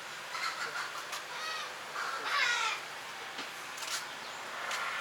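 A crow cawing several times in short harsh calls, the loudest about two and a half seconds in.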